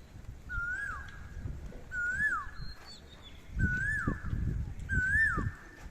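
An animal calling over and over: five whistled notes about a second and a half apart, each rising and then sliding steeply down. Low thuds and rumble sound in between.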